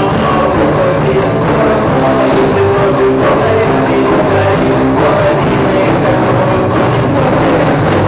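Rock music with a Cort M200 electric guitar playing along with the band, loud and unbroken.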